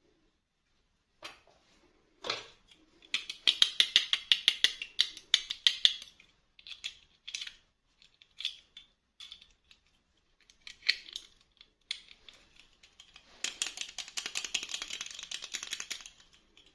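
Plastic packaging crinkling and crackling as it is handled and opened, in runs of rapid crisp clicks, with a sharp snap about two seconds in and a long burst of crinkling near the end.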